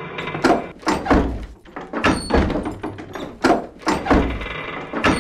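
A string of heavy knocks, irregularly spaced, about nine in five seconds, each with a short ringing tail.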